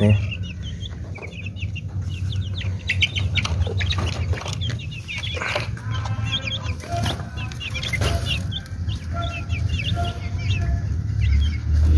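Chickens in a wire cage calling continually, with many short high-pitched peeps and a few longer drawn-out calls in the middle. Scattered knocks come from the cage and feeder being handled, over a steady low rumble.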